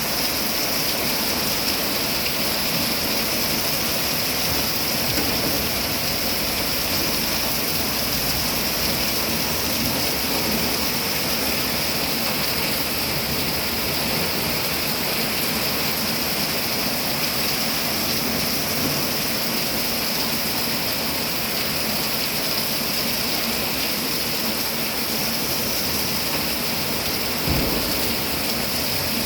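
Heavy rain pouring steadily in a storm. There is a single brief low thump near the end.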